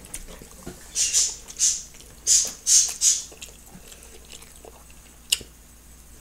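Mouth and breath noises close to the microphone while eating: a quick run of about six short hissy bursts in the first few seconds, then a single sharp click about five seconds in.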